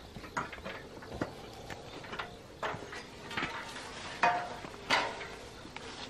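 Portable electric pruning shears cutting water sprouts in the upper canopy of a Fuji apple tree: a series of irregular sharp snips, roughly one or two a second, with branches and leaves rustling.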